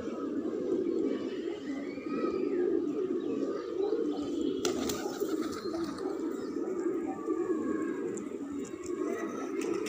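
A flock of domestic pigeons cooing without a break, many calls overlapping. A single sharp click comes about halfway through.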